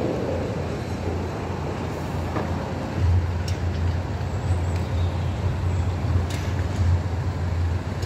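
Steady low rumble of construction machinery engines running, growing louder about three seconds in, with a few faint clicks.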